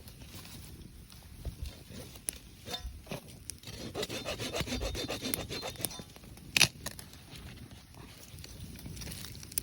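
Hand work on wood: rasping, sawing-like strokes, thickest in the middle, among scattered small clicks, with one sharp knock about six and a half seconds in.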